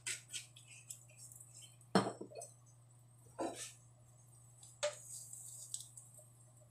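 Kitchen handling sounds: scattered clinks and knocks of a glass oil bottle and a nonstick frying pan being moved about on a gas stove, with a wooden spatula scraping the pan. The loudest knock comes about two seconds in, over a steady low hum.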